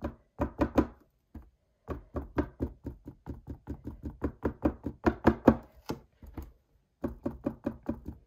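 A bundle of three cotton swabs (Q-tips) dabbing paint onto a stretched canvas: quick soft taps, about four or five a second, in runs broken by short pauses about a second in and again about six and a half seconds in.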